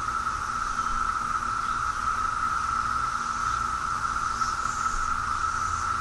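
Chorus of Brood X 17-year periodical cicadas: a dense, steady drone at one pitch, with a fainter higher hiss above it.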